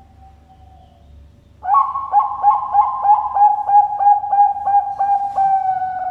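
Zebra dove (Bangkok perkutut) singing: a faint soft coo, then under two seconds in a loud run of about a dozen quick cooing notes, about three a second, ending in one longer held note.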